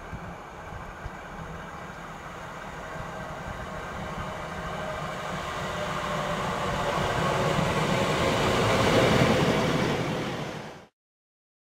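A Class 153 single-car diesel multiple unit approaching and passing close by. The rumble of its diesel engine and wheels on the rails grows steadily louder, peaks about nine seconds in, then cuts off suddenly.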